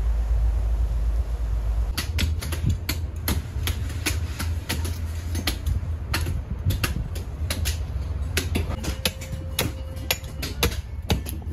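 A low rumble, then from about two seconds in, knife blades strike coconut shells and husks again and again: sharp, irregular knocks, several a second.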